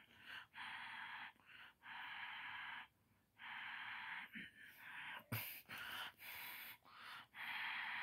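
Breathy whispering close to the microphone: a run of hissy whispered breaths, each lasting about a second, with short gaps between them and one sharp click about five seconds in.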